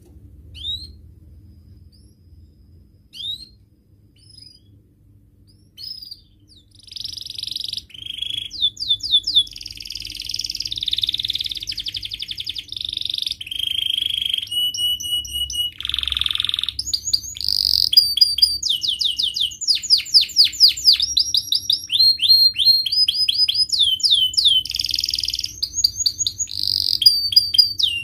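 Domestic canary singing: a few single chirps, then from about seven seconds in a long unbroken song of rolling trills, rapid repeated notes and buzzy phrases.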